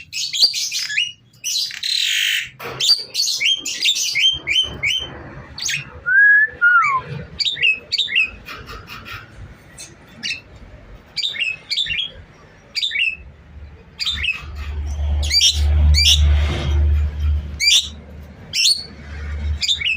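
Javan myna calling busily, a rapid string of short, sharp chirps and squawks. A harsh screech comes about two seconds in and a falling whistle around six seconds. A low hum sits underneath in the last third.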